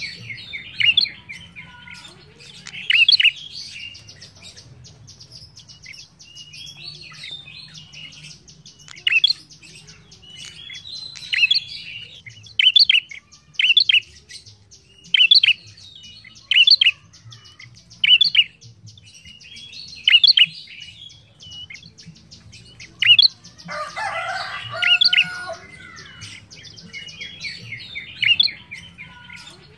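Prenjak, a small rufous-crowned songbird, singing loud, sharp chirping phrases about every one to two seconds. Behind it runs a faster, fainter high ticking and a low steady hum, and a rougher, broader call comes in about three-quarters of the way through.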